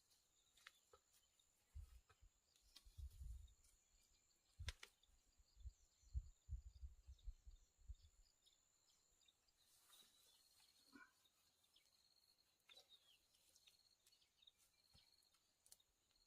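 Faint forest ambience: a steady high insect drone throughout, with a run of soft low thuds in the first half and a sharp click about five seconds in.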